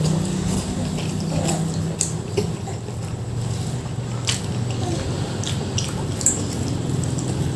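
A person eating nasi Padang: wet squishing and chewing of mouthfuls, with a handful of sharp clicks and ticks scattered through.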